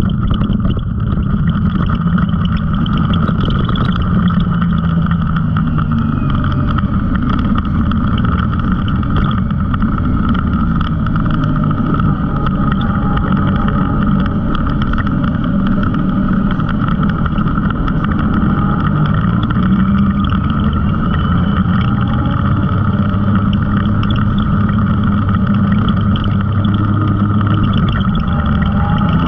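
Side-by-side UTV engine running under way on a dirt trail, its pitch rising and falling with the throttle, over steady rumble and rattle from the tyres and chassis.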